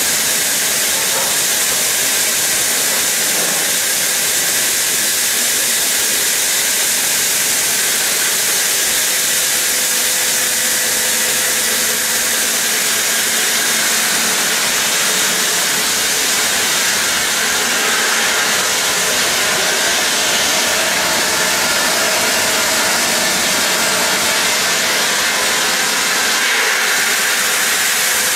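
Large circular saw blade of a TGQ 160 stone cutting machine cutting through a stone block under water spray: a loud, steady high hiss with a faint hum underneath.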